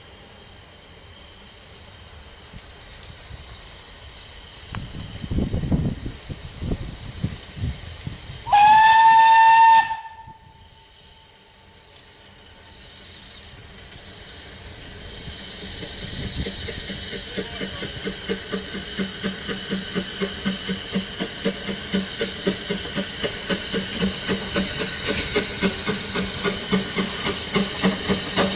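Narrow-gauge steam locomotive sounding a single whistle blast of about a second and a half on one steady note, warning for a level crossing. Then its exhaust chuffs at about two beats a second, growing louder as it approaches with its train.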